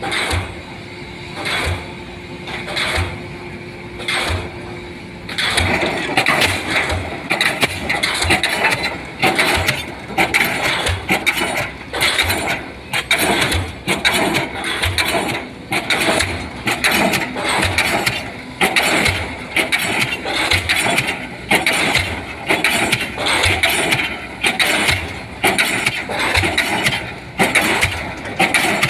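DD 55 diesel pile hammer driving a concrete pile, striking in a steady rhythm about once a second. The blows become louder and fuller about five seconds in.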